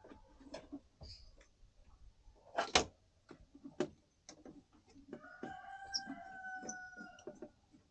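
A rooster crowing once in a long held call from about five seconds in, with scattered sharp knocks before it, the loudest about a third of the way in.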